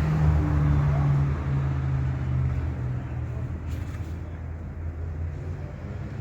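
Car engine running with road noise; its note drops a little and it grows quieter after about a second and a half, as it eases off.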